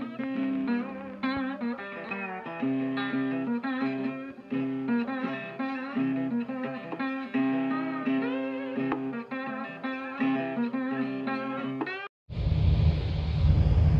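Guitar background music that cuts off suddenly about twelve seconds in, followed by a steady low rumble.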